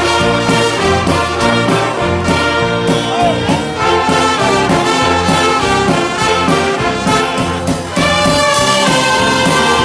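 A large live band of violins and other instruments playing a gospel piece together, loud and steady with a regular beat.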